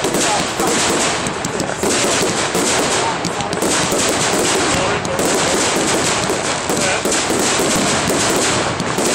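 Fireworks going off in a dense, continuous barrage of rapid crackles and bangs, with crowd voices underneath.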